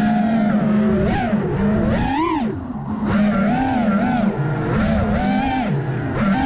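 Racing drone's four T-motor F80 Pro 1900kv motors and three-blade 5-inch props on 6s power, whining loudly with the pitch rising and falling over and over as the throttle changes, with a brief letup a little past halfway.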